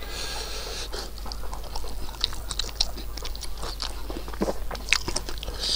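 A person chewing a mouthful of buffalo innards curry and rice, with irregular wet clicking mouth sounds.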